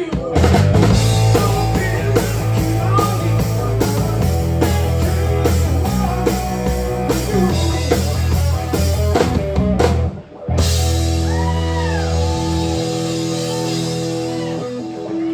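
Live rock band (electric guitar, bass guitar and drum kit) playing. About ten seconds in the sound cuts out briefly, then comes back as long held notes with bending guitar lines.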